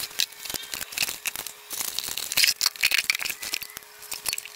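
Close handling noise: a quick, irregular run of clicks, taps and rustles as hands move things near the microphone, busiest in the middle, over a faint steady hum.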